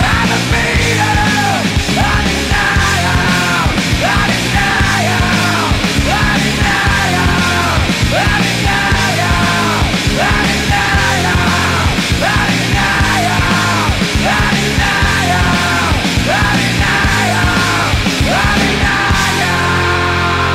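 Loud punk/grunge rock music with distorted guitars, drums and yelled vocals repeating a short phrase; about nineteen seconds in the vocals stop and the band's chords carry on alone.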